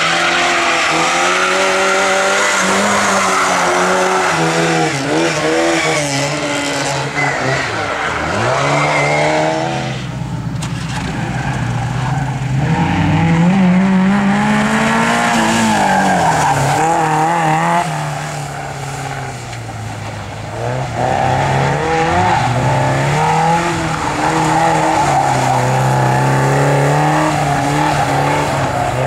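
Rally car engine at high revs, its pitch climbing and dropping again and again as the car is driven hard on the stage. There is a sharp drop about eight seconds in and a quieter stretch near the twenty-second mark.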